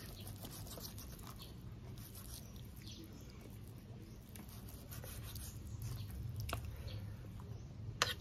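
A knife slicing raw beef on a wooden chopping board: faint scattered scrapes and light taps of the blade, with one sharp knock near the end.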